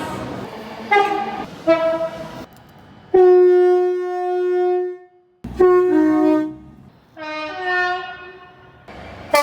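Train horns sounding in a series of blasts: several short blasts, then one long steady blast of about two seconds that cuts off suddenly, then two more blasts.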